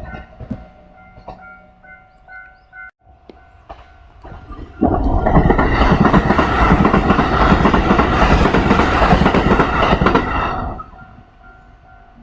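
Japanese level-crossing warning bell ringing in a steady repeating pattern. About five seconds in, a Kintetsu Series 21 commuter electric train passes loudly over the crossing for about six seconds, with wheel clatter on the rails. The bell is heard again near the end.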